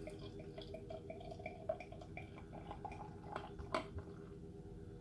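Bottled Belgian golden ale being poured into a glass: faint liquid trickling and fizzing, with a few light clicks.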